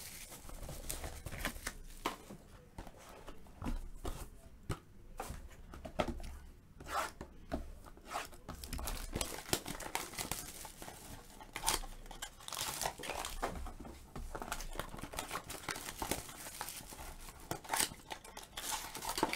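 Clear plastic wrap being torn off a Topps Triple Threads Football card box, then the silver foil-wrapped pack inside handled and crinkled: irregular tearing, crackling and small clicks.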